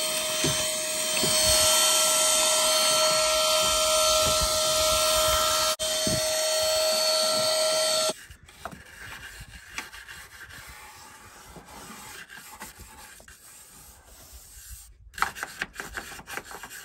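A vacuum cleaner running with a steady whine for about eight seconds while sucking leaf debris out from under the hood, then switching off abruptly. After that, quieter scratchy scrubbing of a stiff plastic brush along the cowl.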